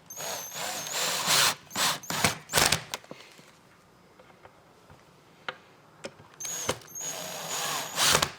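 Cordless battery drill screwing locking pins into a desk panel: two short runs of steady motor whine, the first over the first three seconds and the second near the end, with a quiet pause and a single click between.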